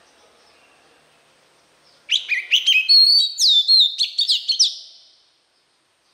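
Male oriental magpie-robin singing one loud phrase of clear whistled notes, held tones and quick upward and downward slurs, starting about two seconds in and lasting about three seconds before fading out.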